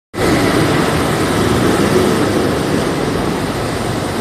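City road traffic: a loud, steady rumble of vehicles moving along an urban road, cutting in suddenly at the very start.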